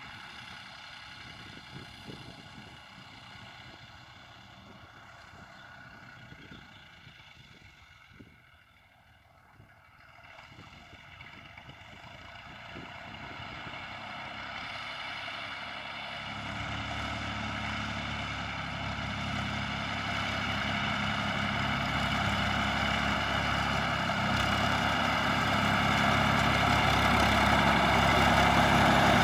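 Massey Ferguson 135 tractor engine running steadily, faint at first and growing steadily louder from about ten seconds in as the tractor draws near.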